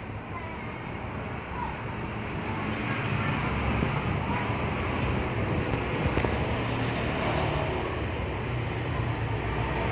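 Steady vehicle rumble with road and wind noise, growing a little louder about three seconds in.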